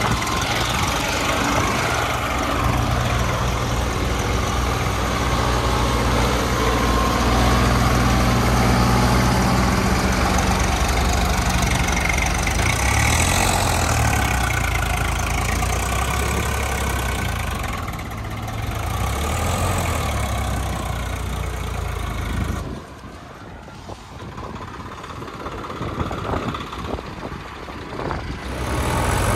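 Tractor diesel engine running, its pitch rising and falling. The sound drops sharply about 23 seconds in and builds back up near the end.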